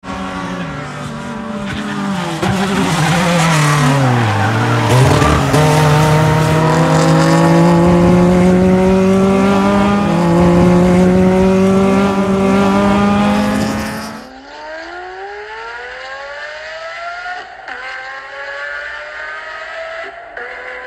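Race car engine running hard as a classic car drives the circuit, its pitch falling then holding steady at high revs. About fourteen seconds in it cuts off abruptly and quieter rising tones follow.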